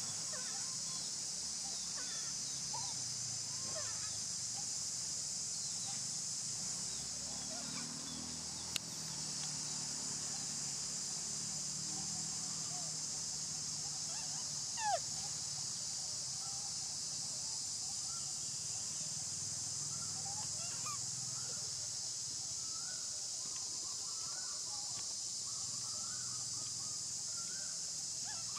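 Steady high-pitched drone of insects, with scattered short squeaky chirps and calls over it and two sharp clicks, one about nine seconds in and one about fifteen seconds in.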